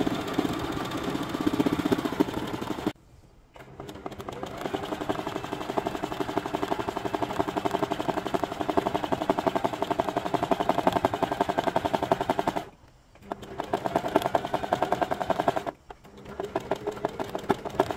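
Domestic sewing machine running, stitching zigzag in rapid, even clicks over a motor hum. It stops three times: for about a second some three seconds in, briefly near the thirteen-second mark, and again just before the end.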